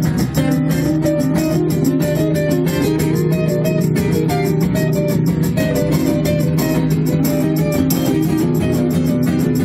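Acoustic guitar played live in an instrumental passage, a moving picked melody over a steady rhythmic pulse.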